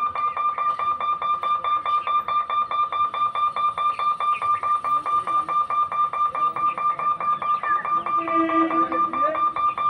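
Railway level-crossing warning bell ringing steadily at about five strikes a second, each strike on the same clear pitch.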